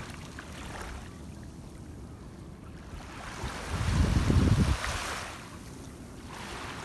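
Small waves lapping and washing up on a sandy beach. About four seconds in, a loud low rumble on the microphone lasts about a second.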